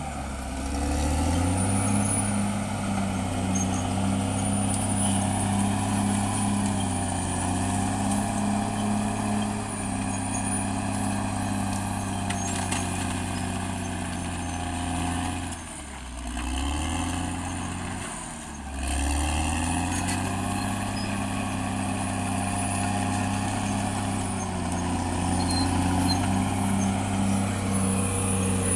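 CAT D6R XL bulldozer's diesel engine running steadily under load, its speed dropping and picking back up twice about halfway through.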